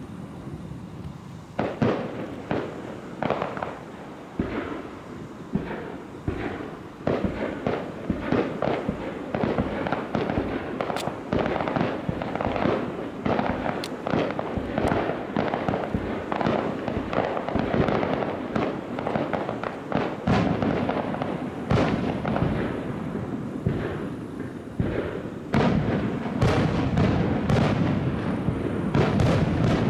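A fireworks display: shells bursting in a dense barrage, bangs coming several times a second over a continuous crackle. It grows louder and fuller about 25 seconds in.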